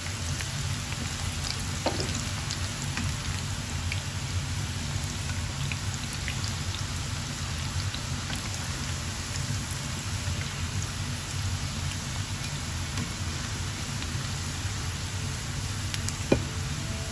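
Flour-and-cornstarch-coated chicken pieces deep-frying in oil in a pan: a steady sizzle with scattered crackles. Two brief knocks stand out, about two seconds in and near the end.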